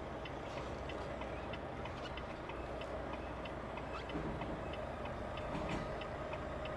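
Semi-truck cab with the engine idling as a steady low hum, and a fast, regular ticking of about three ticks a second over it.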